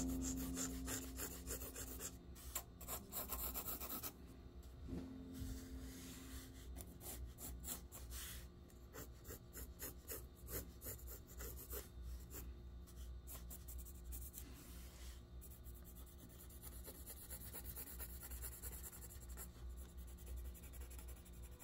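Pencil scratching on sketchbook paper in quick, repeated drawing and shading strokes, busiest in the first few seconds.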